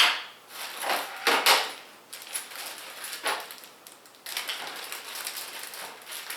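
CPU cooler mounting parts and their packaging being handled: rustling with a few short, sharper crinkles and clatters in the first half, then a steadier rustle.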